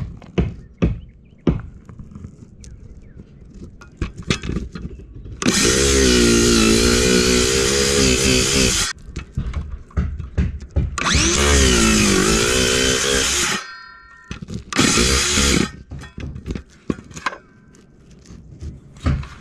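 DeWalt cordless circular saw cutting into a shingled roof in three runs: two of about three seconds each and a short one of about a second, the motor's pitch sagging as the blade takes the load. Short knocks and taps from handling the saw come before and after the cuts.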